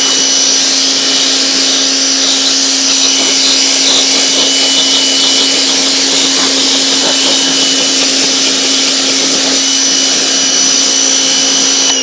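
Portland 1750 PSI electric pressure washer running steadily, its pump motor humming with a high whine over the hiss of the water jet blasting weathered, untreated wooden deck boards. The spray cuts off at the very end.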